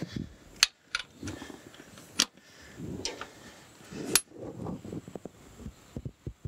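Steel hand tools on the nuts of a locomotive steam chest cover: a few sharp metal clicks and clinks as the torque wrench and socket are handled, then a quick run of ratchet clicks near the end.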